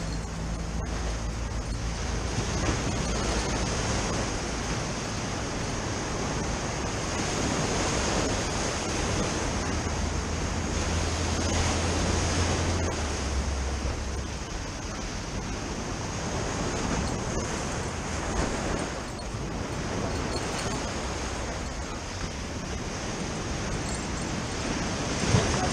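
Ocean surf washing in and breaking against a seawall: a steady rush of waves that swells and eases.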